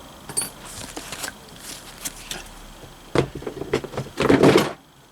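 Metal gearbox parts being handled: a few light clinks and knocks, one with a brief metallic ring, then a louder scraping rattle near the end.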